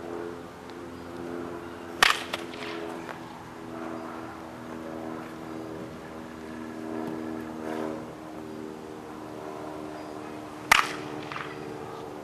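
Baseball bat striking a ball twice, sharp cracks about two seconds in and near the end, each with a brief ring.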